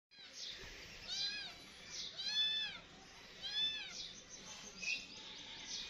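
A kitten meowing three times, high-pitched calls that each rise and fall in pitch, about a second and a quarter apart.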